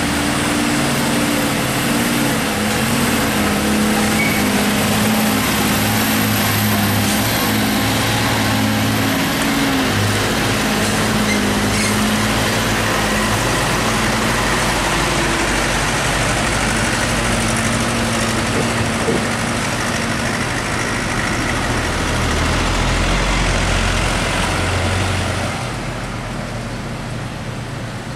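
A motor vehicle running, with engine hum under steady road and wind noise; the sound drops somewhat about 26 seconds in.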